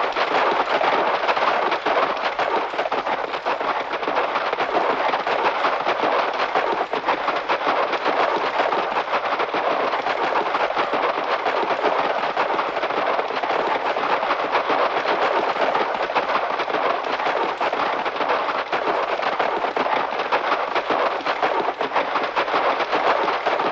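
A posse of horses galloping together: a dense, unbroken clatter of many hoofbeats at a steady level, from an old sound-effects recording with the top end cut off.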